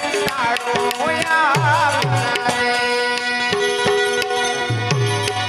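Indian folk music: a hand drum plays a steady stream of strokes, with bass strokes that swoop down in pitch, under sustained held notes and a wavering, ornamented melody line.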